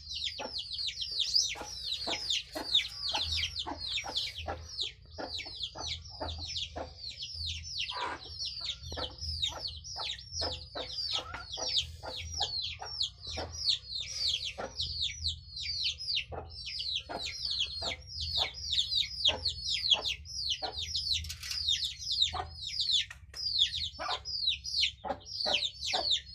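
Desi chickens calling: a dense, unbroken stream of high-pitched, downward-sliding peeps, several a second.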